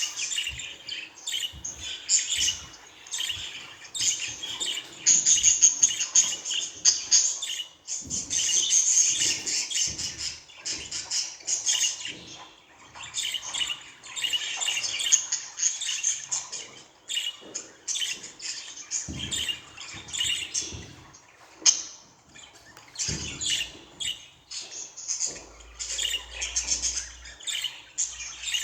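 Budgerigar chattering and warbling: a near-continuous stream of rapid, high chirps with only brief pauses.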